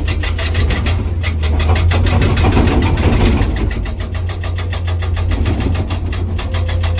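Hydraulic breaker on a Komatsu PC200 excavator hammering hard rock in a fast, even series of blows, about nine a second, over the steady drone of the excavator's diesel engine.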